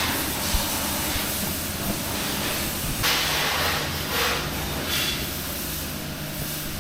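Steady hiss of a high-pressure jet that swells several times, over a low, steady motor hum.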